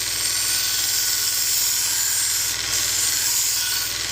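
Belt grinder running with a wetted Nakiri knife blade held against the belt: a steady high grinding hiss over the motor's constant hum, as the blade's cladding is thinned back.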